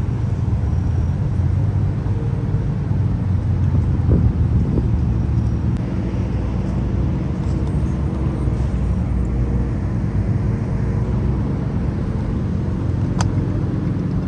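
Car engines idling close by, a steady low rumble, with a single sharp click near the end.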